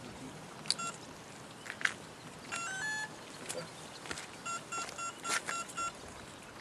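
Electronic beeps from the rotor sail's motor electronics as they are switched on: a short rising three-note chime, then a run of short, even beeps at one pitch. Scattered clicks and knocks of hands working the electronics box come in between.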